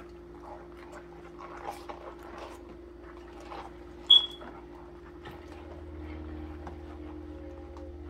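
A small scrub brush working over a stainless-steel Ferris Smith tissue forceps in a basin of soapy water: irregular soft scrapes and sloshing. A single sharp, high-pitched ping about four seconds in is the loudest sound.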